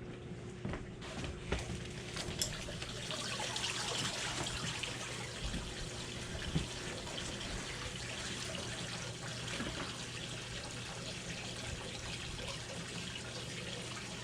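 Water running steadily from a garden hose into a hot tub to top up its low water level, starting a couple of seconds in after a few light knocks.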